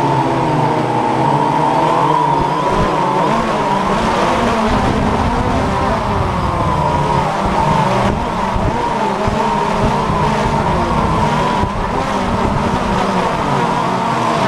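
DJI Phantom FC40 quadcopter's motors and propellers whining, heard through its onboard camera, with several pitches wavering up and down as the motor speeds shift. Wind rumbles on the microphone underneath.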